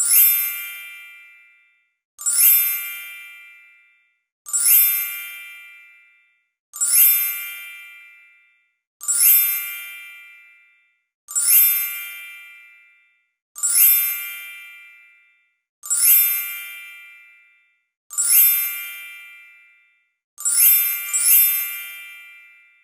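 A bright, bell-like ding sound effect, struck about every two and a quarter seconds and fading out after each strike. Eleven dings in all, the last two coming close together near the end.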